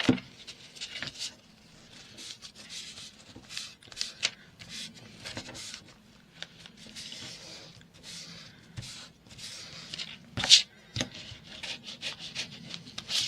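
Paper being rubbed and smoothed down by hand in short, irregular scratchy strokes, pressing glued journal pages together, with one sharp click about ten seconds in.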